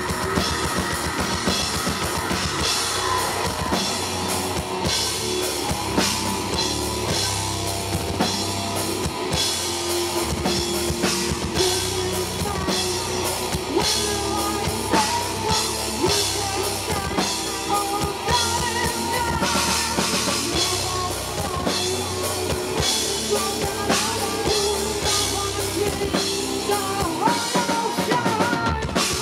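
Metal band playing live: pounding drum kit, distorted electric guitars and bass, with a female vocalist singing into a microphone, recorded from the crowd.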